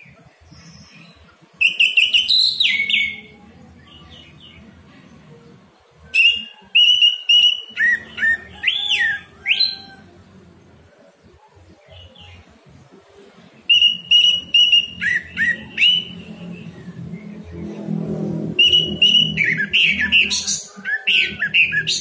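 Orange-headed thrush singing in four bursts a few seconds apart. Each burst is a quick run of repeated clear whistled notes, then sliding, twisting phrases.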